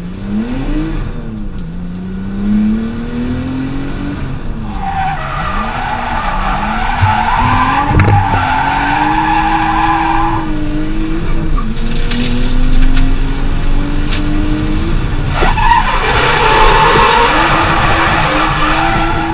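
Nissan Skyline ER34's straight-six engine revving up and down through a drift, heard from inside the cabin. The tyres squeal in two long stretches: from about five seconds in to about ten, and again over the last four seconds.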